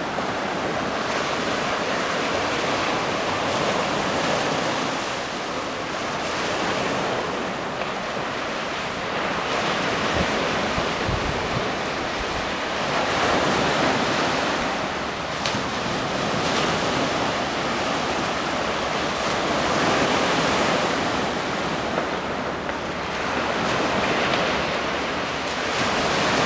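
Ocean surf breaking and washing on a beach, a continuous roar that swells and eases every few seconds as waves come in, with wind buffeting the microphone at times.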